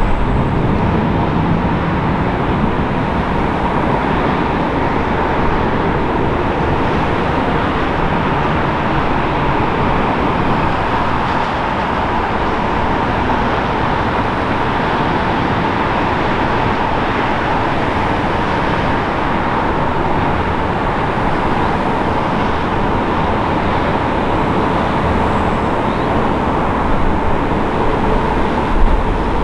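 Airbus A380 jet engines on final approach, a steady roar with a faint steady whine in it. Near the end the low rumble grows as the airliner touches down.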